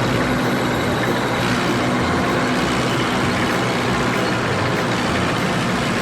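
Military tank's engine running steadily: a loud, even, noisy rumble with a faint steady hum.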